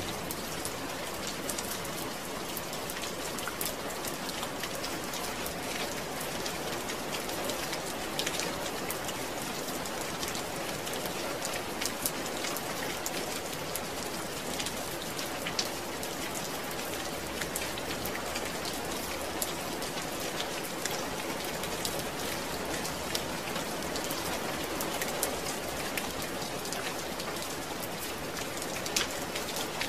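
Steady rain falling on a surface, a dense even hiss with many individual drops pattering through it.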